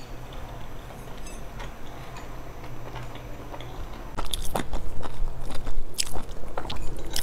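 Close-miked mouth sounds of someone eating boiled dumplings: chewing and wet lip smacks. The sound is soft at first and grows louder about four seconds in, with several sharp smacks.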